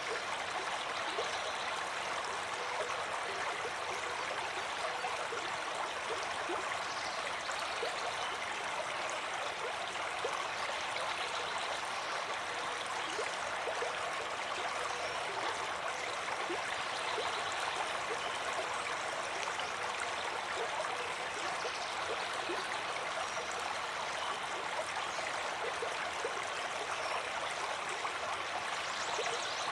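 Stream water flowing steadily, an even rushing with small splashes and gurgles through it.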